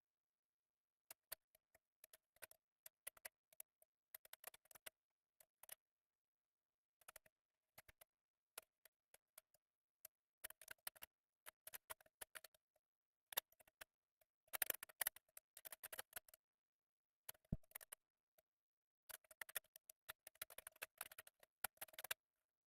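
3x3 Rubik's cube being turned by hand: runs of quick plastic clicks and clacks as its layers are twisted, with short pauses between runs. The runs are busiest around the middle and again near the end.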